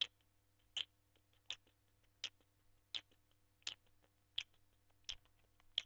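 A person beatboxing with sharp mouth clicks in a steady beat, about one every three-quarters of a second, with fainter ticks in between.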